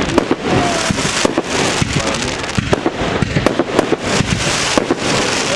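Fireworks display in full swing: a rapid, dense run of bangs and crackling shells, many in quick succession, with faint whistles of rising shells among them.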